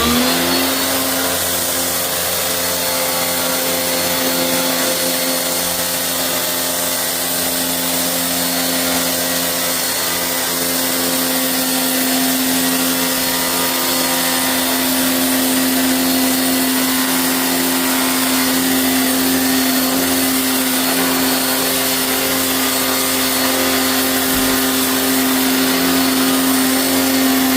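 High-pressure washer running steadily, its motor-driven pump humming at one pitch under the hiss of the water jet, washing out a dirt-clogged air-conditioner condenser coil.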